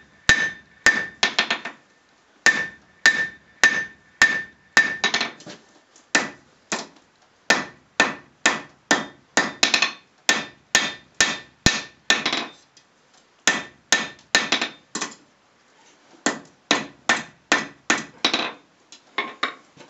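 Hand hammer striking red-hot 1084 steel on an anvil, drawing out a knife tang. The blows come about two to three a second in runs with short pauses, and each blow carries a ringing note for the first five seconds or so.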